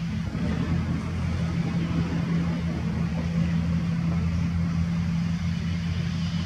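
An engine running steadily, a low unchanging hum with a hiss over it.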